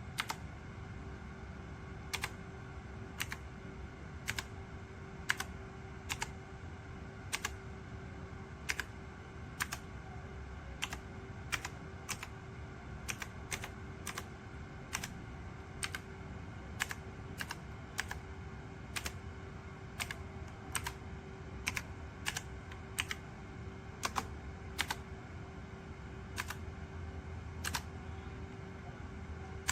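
Blue-switch mechanical keyboard keys pressed one at a time, sharp single clicks at uneven spacing, about one a second, over a steady low hum.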